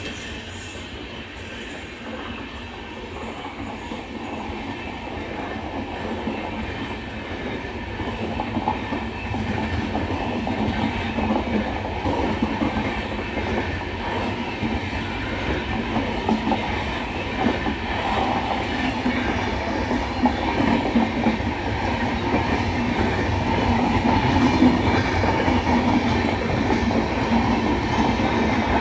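Tejas Express passenger coaches passing at speed, their wheels rumbling and clacking on the rails. The sound keeps on and grows louder over the first ten seconds or so as the train goes by.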